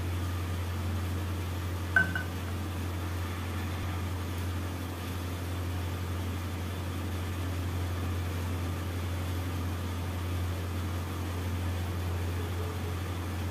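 A steady low hum, with a single metallic clink of a steel spoon against a steel mixing bowl about two seconds in.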